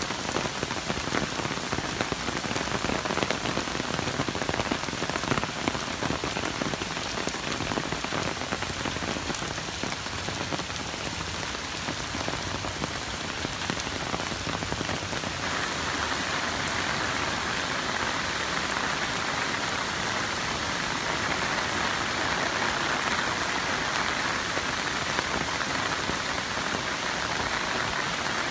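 Heavy typhoon rain falling on wet pavement, a dense steady hiss with many close drop hits. About halfway through it turns into a smoother, brighter hiss.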